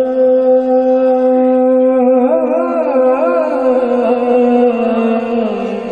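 A man singing a naat (devotional poem) through a microphone, drawing out a long, wordless held note over a steady drone. About two seconds in, a wavering, ornamented vocal line joins it.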